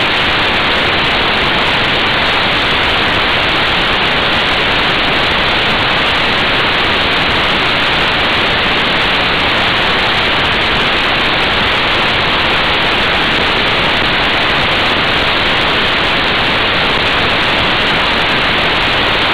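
Steady, loud rush of wind noise on an action camera's microphone while riding a motorcycle at motorway speed, an even hiss that drowns out any engine note.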